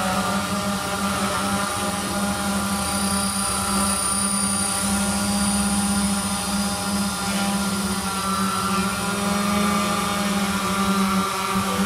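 RC quadcopter in flight, giving a steady, helicopter-like hum that holds an even pitch.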